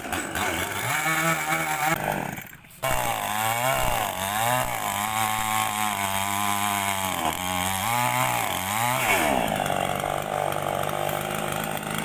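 Two-stroke chainsaw cutting into a tree, its engine pitch sagging and recovering again and again as the chain bites into the wood. About two and a half seconds in it drops briefly, and from about nine seconds in it runs at a steadier, higher pitch.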